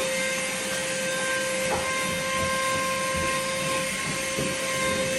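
Vacuum cleaner motor running steadily, a constant whine over a hiss of rushing air.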